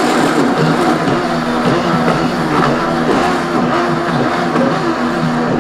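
Countertop blender running at high speed, grinding frozen banana chunks and frozen coconut milk while a tamper stick pushes the mix down onto the blades. Background music plays under it.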